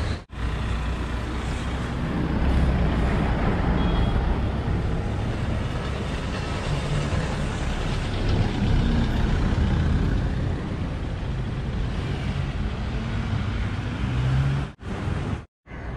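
Road traffic passing close by: a truck and cars driving past with engine rumble and tyre noise. The sound drops out briefly just after the start and twice near the end.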